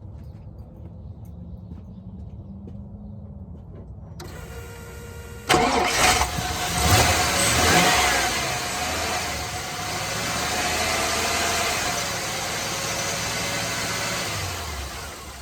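GMC Sierra 2500's gasoline V8 started: about five seconds in it catches with a sudden loud burst, revs briefly, then settles into a steady idle. The engine has an idle problem and tends to stall, which the owner puts down to worn spark plugs.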